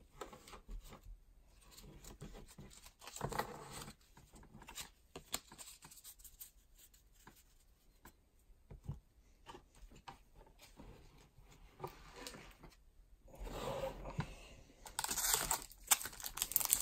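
Trading cards and packs being handled, with scattered soft rustles and taps. About 13 seconds in, the crinkly wrapper of a Topps baseball card pack starts crackling louder as it is worked and torn open.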